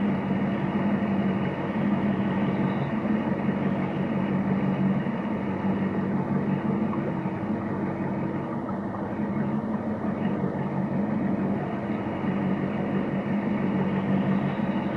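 Inboard engine of a 1957 Century Thoroughbred wooden runabout running steadily underway, with the rush of water along the hull.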